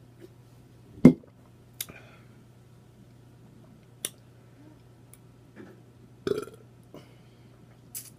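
A woman burping twice: a short burp about a second in and a longer one a little past the six-second mark, with a few sharp clicks in between.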